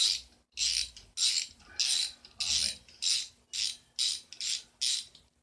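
A hand ratchet wrench clicking in a steady back-and-forth rhythm, about one rasping stroke every half second, as it works a bolt on a motorcycle engine's case. The clicking stops shortly before the end.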